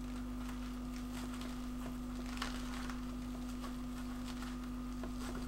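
A steady low hum on one pitch, with faint rustling and small ticks from hands working shock cord into nylon webbing, and one small click about two and a half seconds in.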